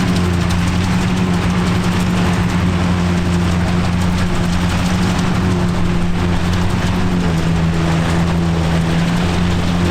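Vintage tractor engine running steadily at a constant speed, its pitch dropping slightly about seven seconds in.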